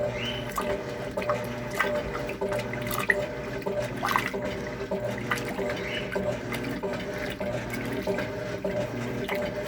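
Electrolux LTC10 top-loading washing machine agitating a heavy load of clothes and blankets in deep water: a low motor hum pulses on and off a bit under once a second as the agitator swings back and forth, with water sloshing.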